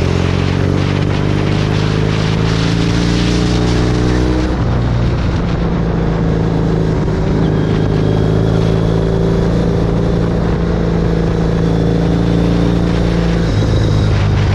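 Triumph Thruxton parallel-twin engine and exhaust under way at a steady cruise, its pitch climbing slightly, with a change in the note about four and a half seconds in and again near the end, over wind rush.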